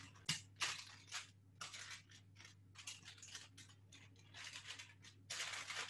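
A spoon pressing and spreading sticky brownie mix over parchment paper: a run of faint, short, irregular scrapes and paper crinkles, with a longer rustle near the end.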